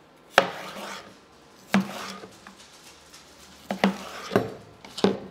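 Chef's knife slicing red bell pepper into thin strips on a plastic cutting board: about five separate knocks of the blade meeting the board, roughly a second or so apart.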